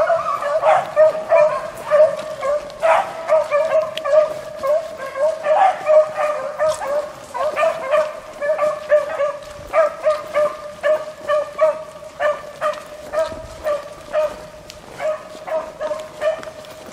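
Beagle hounds baying on a rabbit's trail: short, pitched hound barks repeated about two or three times a second, growing fainter near the end as the hounds move off.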